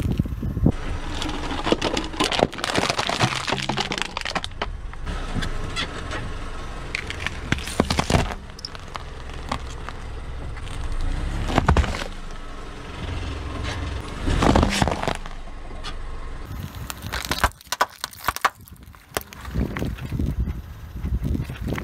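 A car tyre rolling over things and crushing them one after another, with repeated sharp cracks. First a block of ice cracks and shatters, then plastic cups of jelly crack and squelch under the wheel.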